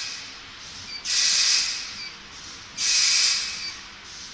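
Compressed air hissing from a spin welding machine's pneumatic valves and cylinders as its functions are switched. There are two sharp bursts a little under two seconds apart, each loud for about half a second and then fading.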